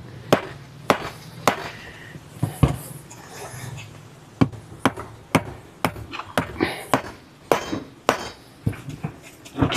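Claw hammer striking nails driven through tyre rubber, bending the cut nail ends over against a sledgehammer held beneath as a backing anvil. Sharp blows at about two a second, with a short pause a little before the middle.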